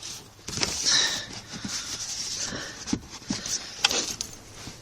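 Plastic interior trim and clips being handled and fitted into place under a car's dashboard: rustling with several sharp clicks and knocks.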